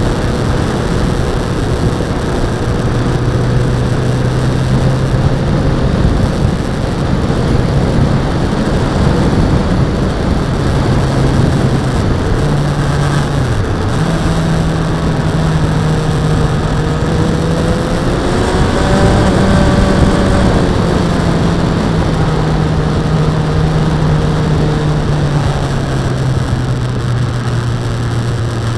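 Suzuki Bandit motorcycle's inline-four engine running at a steady road speed, heard from an on-board camera over a steady rush of wind and road noise. About halfway through the engine note dips briefly and comes back a little higher, and a little later a higher engine tone rises and falls.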